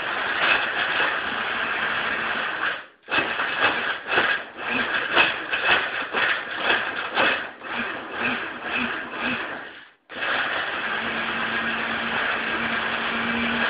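Small personal blender crushing ice cubes and frozen banana in juice. It runs steadily for about three seconds and stops, then starts and stops in a quick run of short pulses. About ten seconds in it cuts out briefly, then runs steadily again.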